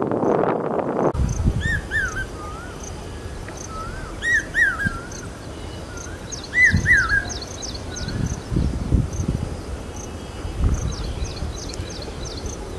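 Common hawk cuckoo (brain-fever bird) calling: three groups of short, arched, whistled notes, a few notes to each group, about two and a half seconds apart. Quick high descending chirps from other small birds come in twice. A rush of noise fills the first second.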